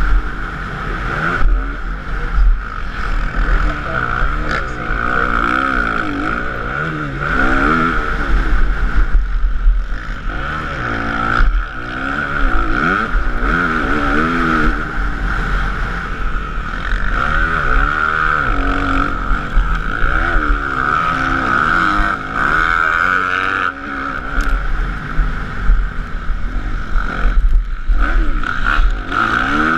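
Motocross motorcycle engine at race pace, its pitch rising and falling every second or two as the rider accelerates, shifts and backs off, with heavy wind rumble on the microphone.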